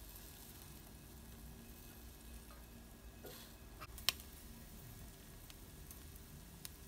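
Marinated pork belly skewers sizzling faintly on an electric grill as they near doneness, with a single sharp click about four seconds in.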